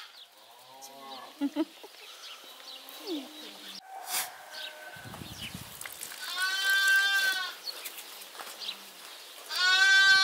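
Lamb bleating: a few faint bleats about a second in, then two long quavering bleats, the second near the end the louder.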